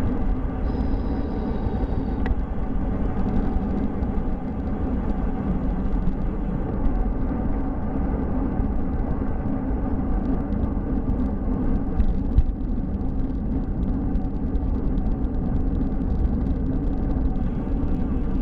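Steady wind rush on the microphone and low rolling rumble of a bicycle riding along a paved path, with a faint brief high whistle about a second in and a couple of small clicks later on.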